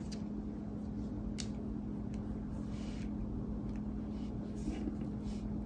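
A steady low hum of room background, with a few faint, soft rustles and light ticks scattered through it as a hand with long acrylic nails moves over tarot cards laid on a table.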